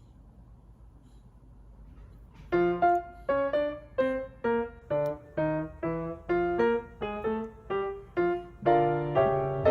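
Background music: a keyboard tune of steadily repeating single notes, about two to three a second, starting about two and a half seconds in after a faint low hum.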